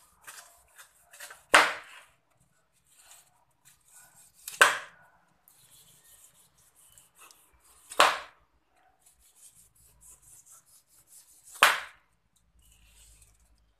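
Dry leaves being torn off the crown of a pineapple by hand: four short, sharp tearing sounds about three seconds apart, with faint rustling of the stiff leaves between them.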